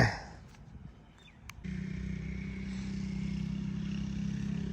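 A short loud thump right at the start, then a click, then an engine starts to be heard about a third of the way in and keeps running at a steady, even pitch.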